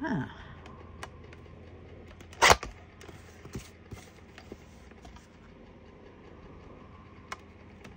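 Small clicks and taps of craft pieces being handled at a table, with one brief, loud, hissy noise about two and a half seconds in.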